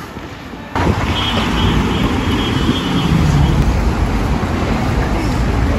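Road traffic on a city street: cars passing with a steady, heavy low rumble that starts abruptly about a second in.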